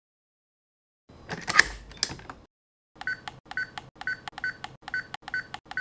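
SBS3000 fingerprint door lock: a short mechanical clatter, then its keypad beeping once per key press, about three beeps a second, as a code is typed in.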